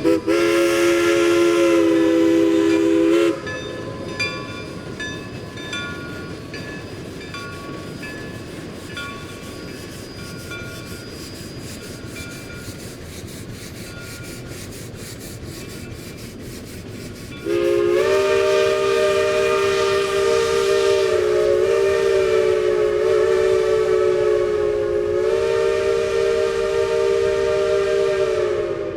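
Steam locomotive chime whistle sounding a chord of several notes: a blast of about three seconds, then after a pause a long blast of about eleven seconds that wavers slightly in pitch, over a steady hiss.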